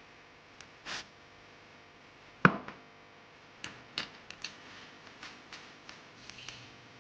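Parts and tools being handled during motorcycle assembly: one sharp knock about two and a half seconds in, then scattered light clicks and taps.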